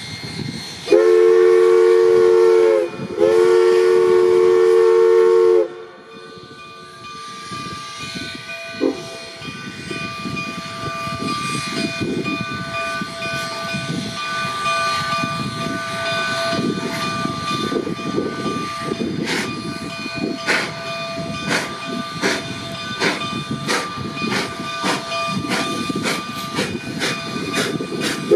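Steam locomotive whistle sounding two long chime blasts, the standard signal to release brakes and proceed. Then steam hiss and exhaust beats from the coal-fired narrow-gauge locomotives build up and grow louder.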